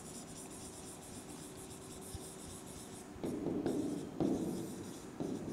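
Writing on a board: scratchy pen or marker strokes, with a few louder strokes a little over three seconds in.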